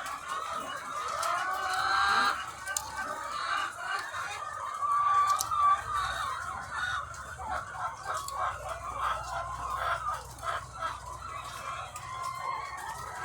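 A large flock of egg-laying hens clucking and calling all at once, many voices overlapping. A low steady hum joins in about halfway through.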